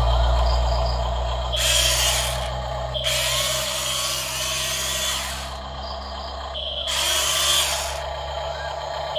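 Electric gear motors of a Double E E568-001 remote-control Volvo excavator model whirring as the boom and bucket move and the upper body swings: three runs, the middle one a couple of seconds long, over a steady low hum.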